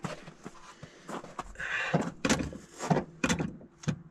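A few irregular clunks and knocks, most of them in the second half, as hands work at the carburetor of an old Ford truck's engine under the hood.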